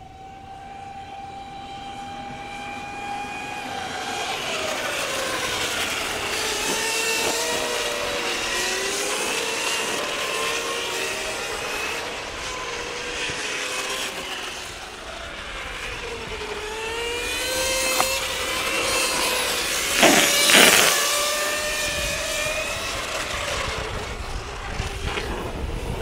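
Electric minibike motors whining, several at once, their pitch rising and falling as the bikes accelerate and brake through the corners. About twenty seconds in, a bike passes close with a brief loud rush.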